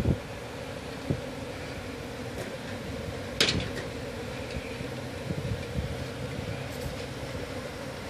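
Steady droning hum of a mass of honeybees disturbed during a hive removal, with one sharp knock about three and a half seconds in.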